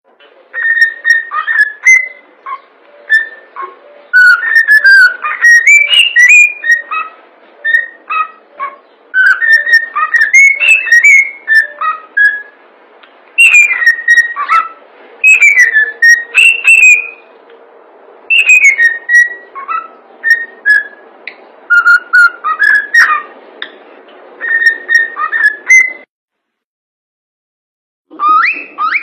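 Cockatiel whistling a song: short clear whistled notes, many sliding up or down, in phrases with brief pauses between. It stops about 26 seconds in, and after two seconds of silence a new run of whistles starts near the end.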